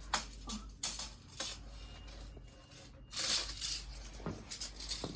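Light clinks and knocks of hard objects being handled, with a brief scraping rustle about three seconds in.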